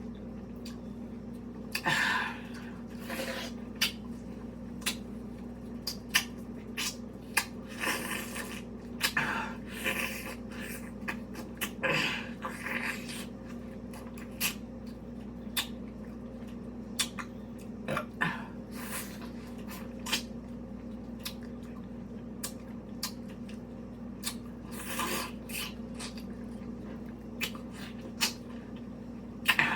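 Close-miked mouth sounds of a person eating a mango: irregular short smacks and clicks mixed with longer sucking sounds, over a steady low hum.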